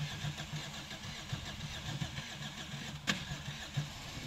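Car engine running hot while it is deliberately run to destruction, with a steady hiss over it and one sharp click about three seconds in.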